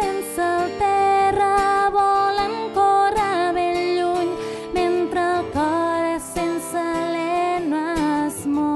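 A woman singing a melody line, with gliding notes and no clear words, over an acoustic guitar in a live song performance.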